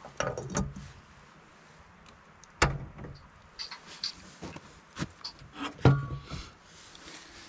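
Scattered knocks and clunks of a metal kettle and camp stove being handled as the kettle is set on the burner, with sharp knocks about two and a half seconds in and again near six seconds, the latter the loudest.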